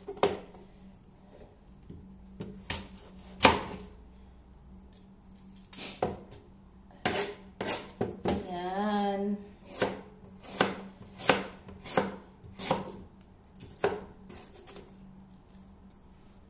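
Chef's knife cutting green apples on a plastic cutting board: irregular sharp knocks as the blade meets the board, about one or two a second.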